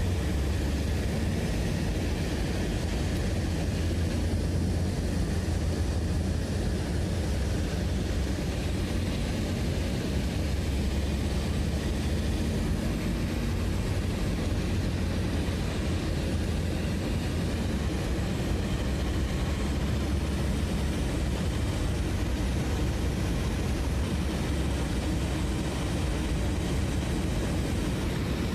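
A steady, unbroken low engine drone, with a faint steady hum above it in the first half.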